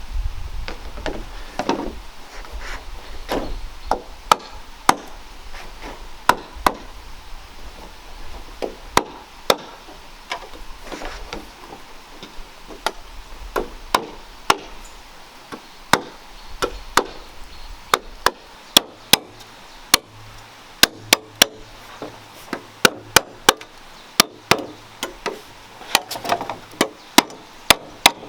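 Repeated chopping blows on bamboo, sharp wooden strikes: spaced out and irregular at first, then a quicker run of about two blows a second in the second half.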